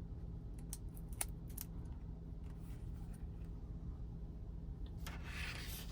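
Faint ticks and a brief crinkling rustle about five seconds in, from a plastic screen protector being handled and its backing film peeled off to expose the adhesive. A low steady hum sits underneath.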